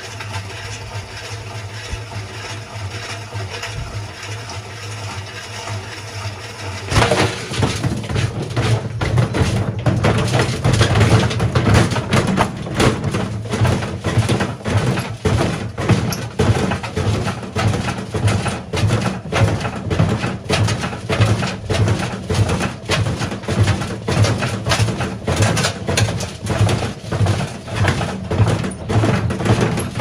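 Whirlpool front-loading washing machine running with a large stone in its drum: a steady motor hum at first, then about seven seconds in it gets louder and the stone bangs against the drum again and again as it tumbles.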